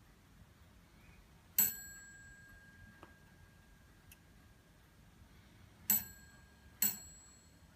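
Antique French mantel clock striking on its bell while its hands are turned on by hand: one blow for the half hour, then about four seconds later two blows close together for two o'clock, each ringing on and fading.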